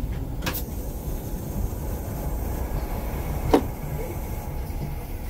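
Passenger train moving slowly, heard from inside the coach: a steady low rumble, with a sharp click about half a second in and a louder one about three and a half seconds in.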